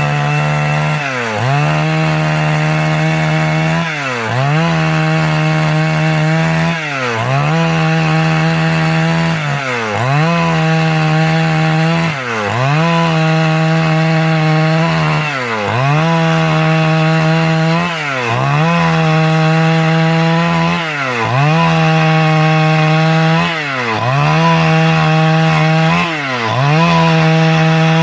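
Stihl MS 382 two-stroke chainsaw running under load, ripping a log lengthwise into a board. Its engine note holds steady, then dips briefly and climbs back about every two and a half to three seconds.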